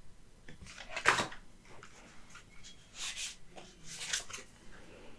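Oracle cards being handled: a few short papery slides and rustles as cards are moved, the loudest about a second in.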